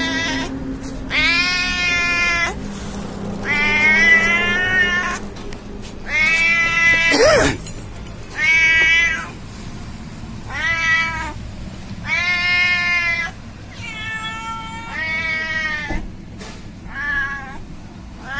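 Domestic cat meowing repeatedly, about nine drawn-out meows of around a second each, spaced a second or so apart. There is a short knock about seven seconds in.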